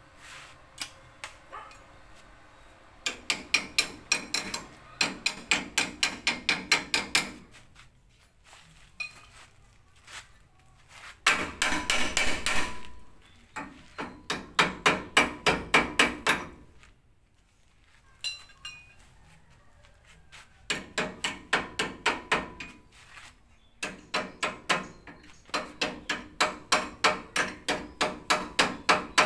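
Hammer blows on the steel frame of a tricycle sidecar, about four quick ringing strikes a second in runs of several seconds with short pauses. Near the middle there is about a second and a half of steady harsh noise.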